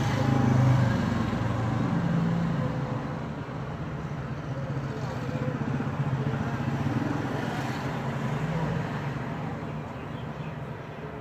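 Slow-moving road traffic heard from inside a car: a steady low engine hum, with cars and motorcycles running close alongside.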